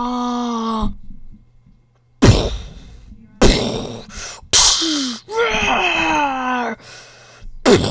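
A person's voice making sound effects: a held, sung note that stops about a second in, then after a short silence a sudden loud, breathy burst, followed by a string of groans and cries that slide up and down in pitch.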